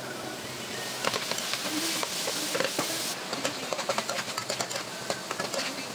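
Food sizzling in a frying pan with a steady hiss, while a slotted spatula scrapes and taps against the pan, the taps coming more often in the second half.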